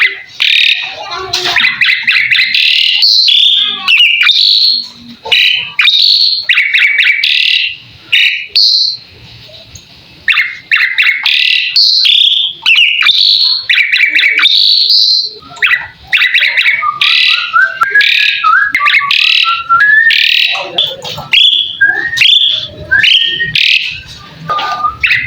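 Asian pied starling (jalak suren) singing loudly: a long, varied run of chattering, squeaky and whistled phrases. Partway through it switches to a string of clearer whistled notes that step upward.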